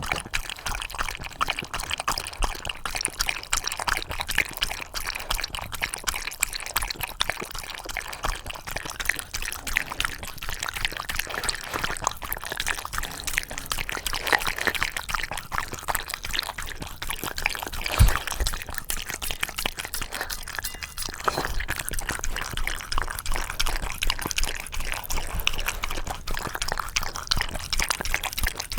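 A Shiba Inu lapping and licking thick yogurt from a dish: a steady run of quick wet clicks and smacks, with one louder knock about two-thirds of the way through.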